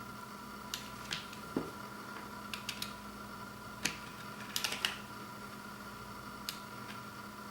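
Scattered light clicks and taps from handling a vinyl LP's cardboard sleeve and packaging, some in quick little clusters, over a steady faint hum.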